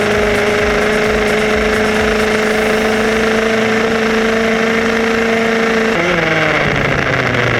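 Toy remote-control car's electric motor whining steadily. The pitch creeps up slightly, then drops about six seconds in.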